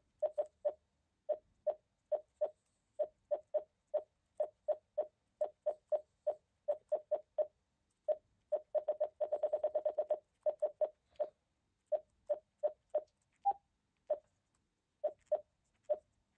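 TYT MD-9600 radio running OpenGD77 firmware giving short keypress beeps as its menus are scrolled. The beeps are brief, all at one pitch, and irregularly spaced, with a fast run of them about nine seconds in and one higher beep near the end.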